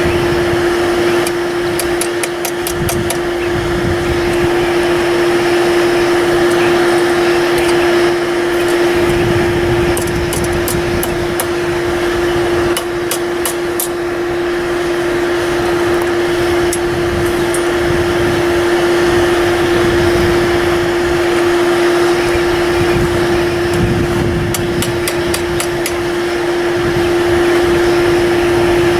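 Blacksmith's hammer striking steel on an anvil in quick runs of several blows, repeated every few seconds, over a loud steady mechanical hum with one constant tone.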